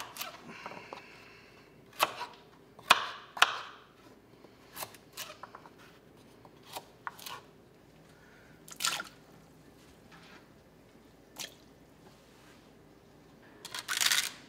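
Kitchen knife chopping peeled carrots against a plastic cutting board: a few sharp, separate chops in the first seconds, then scattered softer knocks and drips. A quick run of chops near the end as celery stalks are cut.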